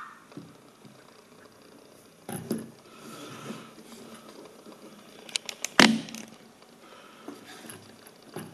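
Handling noise from a plastic Forky toy figure being set up and adjusted by hand: soft rubbing and scattered clicks, with a quick run of sharp clicks and one louder knock a little before six seconds in.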